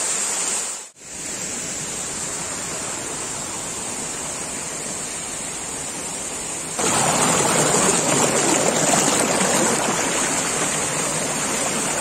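Heavy, steady rush of a waterfall in full monsoon flow. It drops out briefly about a second in and is louder from about seven seconds in.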